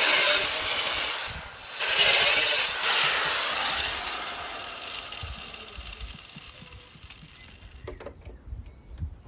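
Angle grinder running against the car's steel bodywork, briefly easing off and coming back on, then released and spinning down slowly over several seconds. A few light knocks near the end.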